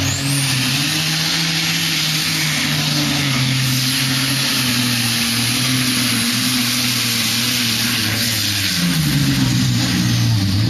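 Modified pulling tractor's engine at full throttle, dragging the weight sled down the track: a loud, steady engine note under a dense roar. Its pitch drops near the end.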